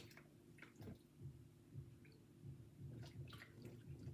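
Near silence: faint small splashes and drips of water in a kitchen sink over a low steady hum.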